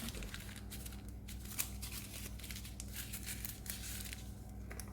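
Faint crinkling and rustling of baking paper as it is squeezed like a piping bag around soft butter, piping a line along the top of cake batter.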